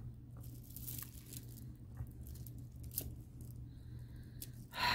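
Beaded necklaces handled on a table: a few scattered light clicks of wooden and glass beads knocking together, over a low steady hum. A short sigh-like vocal sound comes right at the end.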